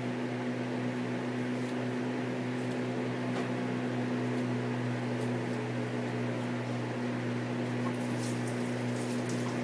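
Steady low mechanical hum, unchanging throughout, with a few faint clicks of kitchen handling near the end.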